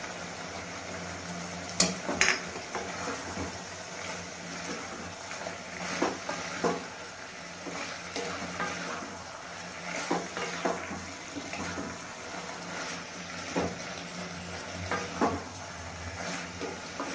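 Wooden spatula stirring boiled beetroot, carrot and potato in oil in a metal kadai, with irregular knocks and scrapes against the pan over a faint steady sizzle.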